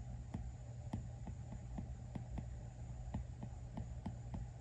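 Apple Pencil tip tapping on the iPad Pro's glass screen as short strokes are sketched: light, unevenly spaced ticks, about three a second, over a steady low hum.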